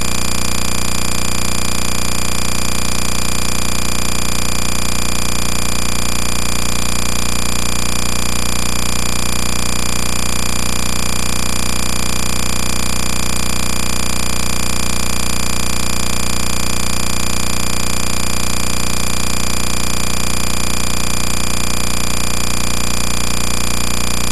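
Loud, unchanging mechanical noise, a steady drone made of many fixed tones over a fast, even rhythm, with no rise or fall.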